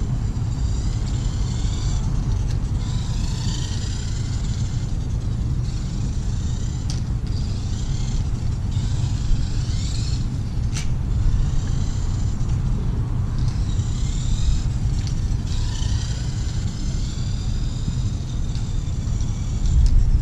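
Small electric motor and gears of a Tamiya Dual Rider RC trike whining, rising and falling in pitch again and again as it speeds up and slows. Under it runs a steady low rumble.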